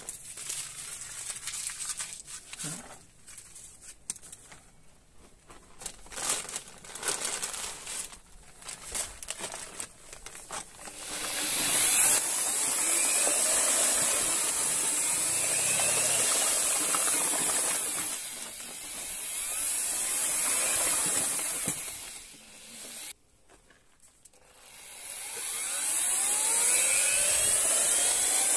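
Paper sack of backing plaster rustling as the powder is poured into a plastic bucket, then an electric drill with a paddle mixer running to mix the plaster with water. The mixer stops briefly near the end, then starts again with a rising whine as it picks up speed.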